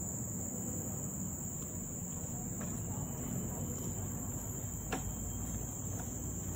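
Insects in tropical forest droning in a steady, high-pitched chorus, over a low rumble, with a faint click about five seconds in.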